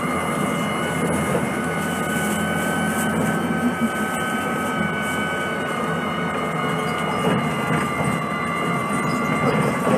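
2006 Orion VII CNG transit bus with a Cummins C Gas Plus engine and Voith DIWA D864.3 transmission running along steadily. Engine and road noise carry a steady high whine made of several tones that sag slightly in pitch.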